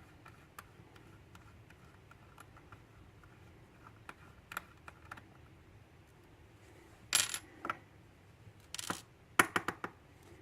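Small metal lock parts and tools clicking and clinking as a lock cylinder's tailpiece is taken off, with light ticks at first and a few louder metallic clatters in the second half.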